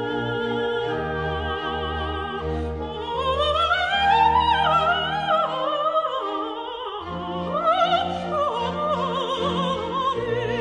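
Operatic singing with orchestral accompaniment: a solo voice with strong vibrato climbs to a high phrase partway through, then falls, over sustained string tones.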